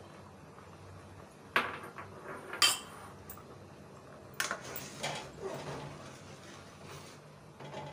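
Metal spoon clinking against a metal cooking pot: two sharp clinks about a second and a half and two and a half seconds in, then another about four seconds in. After that comes a couple of seconds of scraping and knocking as the spoon stirs the thick milk and vermicelli.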